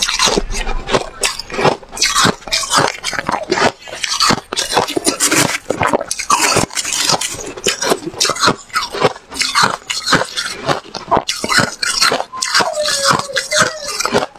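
Close-miked chewing of crunchy white freezer frost: rapid, irregular crisp crunches and crackles of ice breaking between the teeth.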